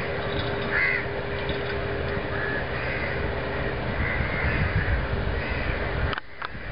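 Crows cawing repeatedly, over a steady low drone and a low rumble. The sound drops out briefly near the end.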